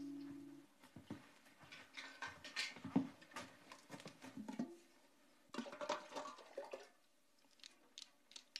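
Irregular light clinks and knocks of a metal bowl and a wooden spoon being handled. They come in two clusters with a short pause between.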